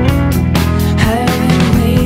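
Song with guitar and a steady drum beat.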